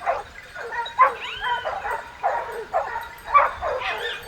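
Hunting dogs on the trail of a wild boar, baying and yelping in quick, repeated cries several times a second.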